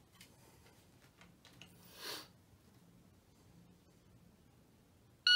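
Mostly quiet room, with a brief soft hiss about two seconds in. Right at the end an electronic shot timer starts its start beep, a loud high steady tone.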